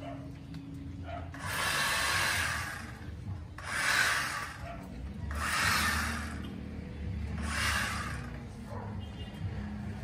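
Bosch 18 V cordless reciprocating saw cutting through tree branches in four short bursts, each about a second long.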